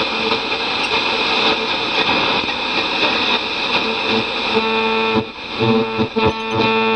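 Vintage Lafayette tube radio's speaker giving out loud, steady static between stations. About four and a half seconds in, steady tones rise out of the static as a signal starts to come in.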